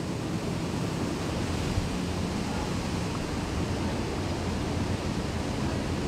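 Steady industrial roar of a blast furnace works: a constant rumbling noise with no distinct events.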